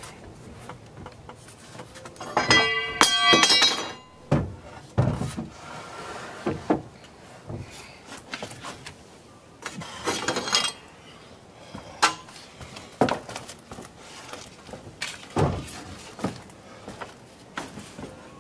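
Sped-up time-lapse sound of deck boards being cut and handled: rapid knocks, clatters and clinks, with two short high whines from the power saw, about two and a half and ten seconds in.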